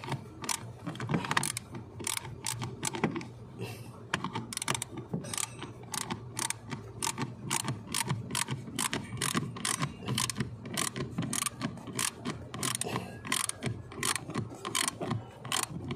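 Hand ratchet clicking in quick, uneven runs, a few clicks a second, as the last fastener is turned in.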